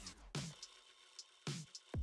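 Background music: a sparse electronic beat with a few deep kick-drum thumps and faint high ticks between them.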